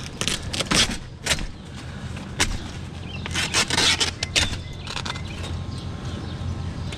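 A metal cot frame being handled for scrap: irregular sharp clanks and knocks, a cluster in the first second and another around the middle, over a steady low hum.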